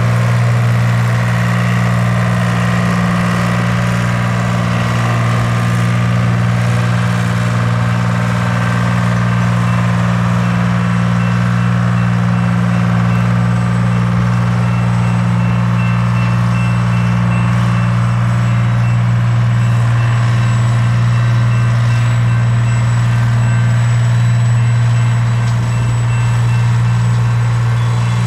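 Diesel engine of a continuous welded rail train running with a steady deep hum as the rail-laden flatcars and yellow unloading car move slowly past. A faint high beeping repeats through the middle stretch.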